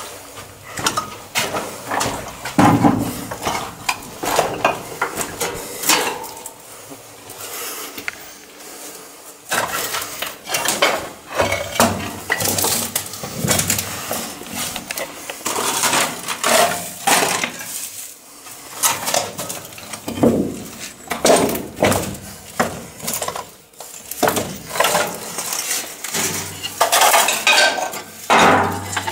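Loose rock and broken stone slabs clinking, knocking and scraping underfoot and under hand as people clamber over the rubble on a narrow tunnel floor: an irregular string of sharp clinks and knocks.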